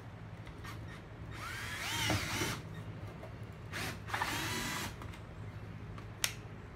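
Cordless drill run in two short bursts about a second apart, its motor spinning up and winding down each time, then a single sharp click near the end.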